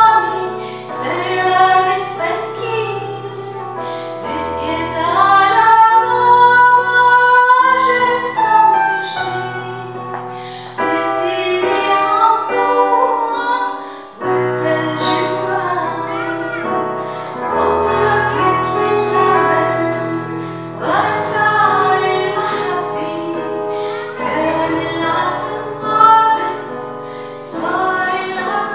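A woman singing an Arabic Christmas song solo, with long held notes, accompanied by a Korg Pa700 keyboard playing sustained chords and held bass notes.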